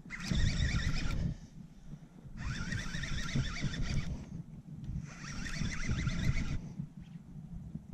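Fishing reel cranked in three bursts of a second or so, a fast ticking whir, while a hooked bass bends the rod. A low rumble runs underneath.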